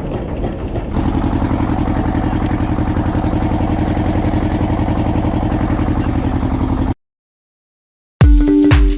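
Fishing boat's engine running steadily at sea, a constant low drone. It cuts off abruptly about two seconds before the end, and after a moment of silence electronic music starts near the end.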